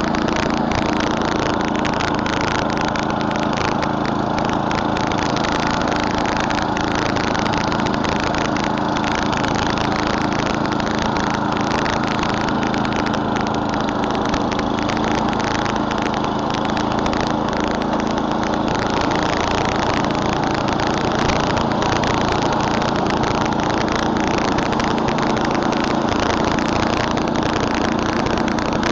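Murray Select snowblower's 11 hp Tecumseh single-cylinder engine running steadily at a constant speed.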